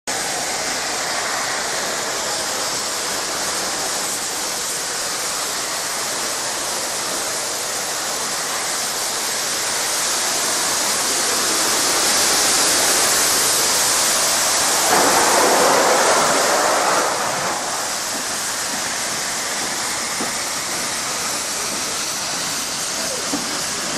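Steam locomotive and its coaches passing along a station platform: a steady rushing noise that swells as the engine goes by and is loudest about fifteen to seventeen seconds in, then eases back as the coaches roll past.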